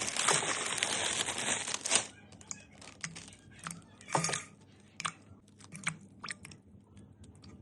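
Kitchen handling noise as fruit is readied for washing: about two seconds of loud, dense rustling, then scattered light clicks and knocks.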